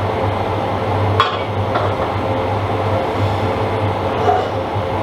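A sharp metal clank of steel workpieces being handled, about a second in, with a lighter knock shortly after, over a steady workshop hum.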